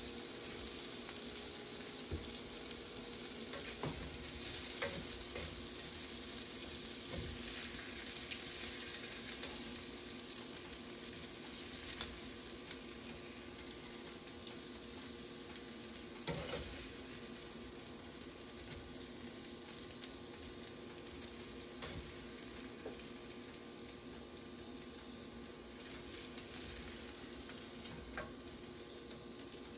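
Ramen noodles and vegetables sizzling in a stainless steel frying pan, with a few sharp clicks of a utensil against the pan and plate as the food is served out.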